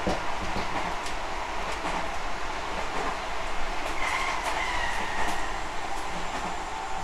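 Tobu 50050-series electric train running, heard inside a motor car: a steady rolling rumble with faint rail-joint clicks. From about four seconds in, a traction-motor whine slowly falls in pitch.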